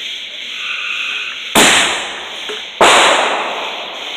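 Two loud firework bangs about a second and a half and nearly three seconds in, each dying away briefly after the blast.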